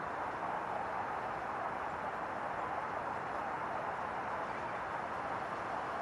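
Steady, even rushing background noise with no distinct calls, knocks or changes.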